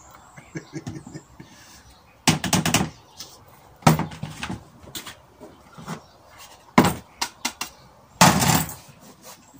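Clatter and knocks of plastic kitchenware being handled: a measuring jug, a bucket and a digital kitchen scale picked up and set down. Several short, louder bursts of noise stand out among the small clicks, the strongest a little over two seconds in and again about eight seconds in.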